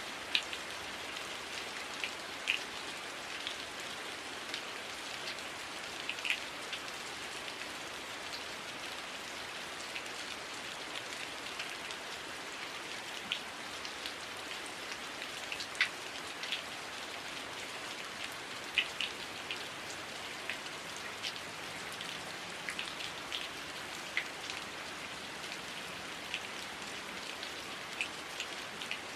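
Heavy rain falling steadily, a constant hiss with many sharp, scattered drop hits.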